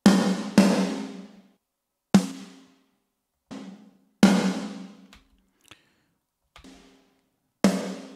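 A rock snare drum played solo, two layered snare tracks with reverb added, striking a sparse pattern. There are about five hard hits and a few quieter ones, each with a ringing, reverberant tail that dies away over about a second.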